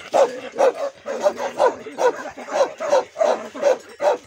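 A large, long-haired chained dog barking over and over in quick, loud barks, about three a second.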